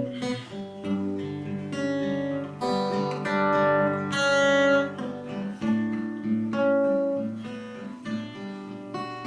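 Acoustic guitar playing a slow instrumental intro, chords strummed and left to ring, ahead of the first sung line.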